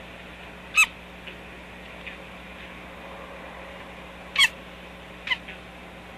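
Chicks giving short, high calls that fall in pitch: two loud ones about a second in and past the middle, a weaker one just after, and faint chirps between. This is the strange sound the chicks are making.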